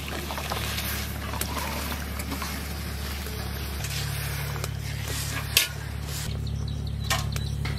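Pot of water boiling with pumpkin stems and leaves in it: a steady bubbling hiss over a low rumble, with two sharp clicks in the second half.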